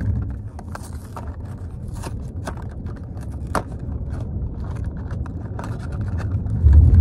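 Cardboard Whoppers candy box being pried open and handled, giving scattered clicks and scrapes, one sharper click about halfway through, over the steady low hum of the car. A loud low thump comes near the end.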